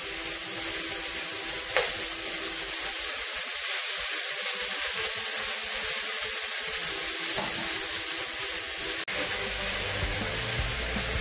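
Steak searing in hot oil in a frying pan: a steady sizzle, with the scrape of a metal spoon as the pieces are turned.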